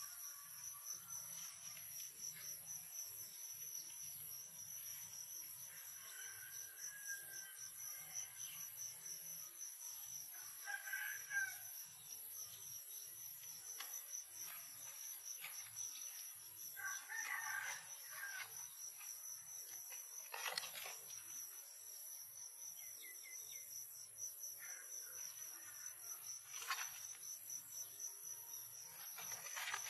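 Steady, high-pitched insect chorus of crickets or cicadas, with a rooster crowing faintly twice, about a third of the way in and again just past the middle, and a few sharp clicks later on.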